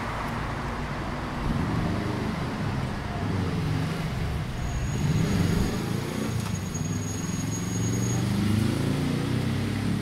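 City bus engine running close by as it pulls up alongside and stops, over general street traffic noise. A thin high whine sounds for a few seconds in the middle.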